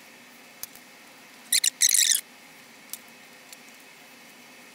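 Pink insulation foam board squeaking as a piece is trimmed to fit: three short high squeaks in quick succession about one and a half seconds in, with a few faint clicks around them.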